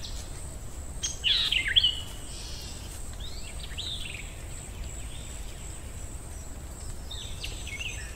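Forest ambience sound effect: birds chirping in short, quick calls over a steady low background noise, with the loudest run of chirps about a second in.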